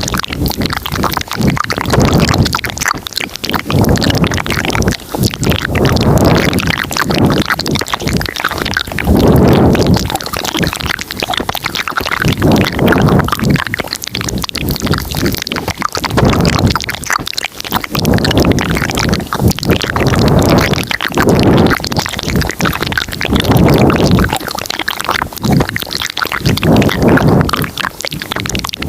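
Close-miked, layered ASMR mouth sounds: a dense stream of wet clicks and smacks, with fuller, deeper swells coming every couple of seconds.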